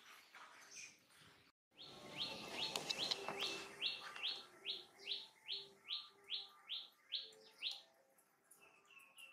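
High, rising chirping calls repeated evenly about three times a second for several seconds, then fainter, quicker chirps near the end.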